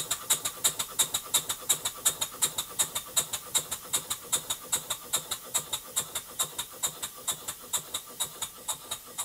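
Stuart 5A model steam engine running on compressed air, its exhaust giving sharp, even puffs of air about four times a second. This is its first run with newly fitted Stephenson's link reversing gear, and it runs, though not yet perfectly.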